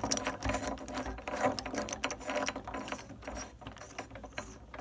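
Threaded metal rosette of a Corbin Russwin commercial door knob being unscrewed, a dense irregular run of small metal clicks and scrapes as it turns on its threads.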